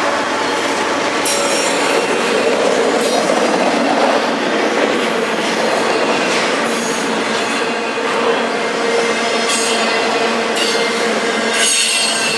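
Double-stack intermodal well cars rolling past at speed: steady wheel-on-rail noise with a thin, steady wheel squeal and occasional clatter as car ends go by.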